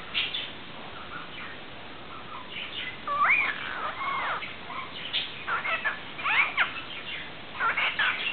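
Cockatiel vocalising: after a lull, two long curving whistles about three seconds in, then quick runs of short chirps and calls.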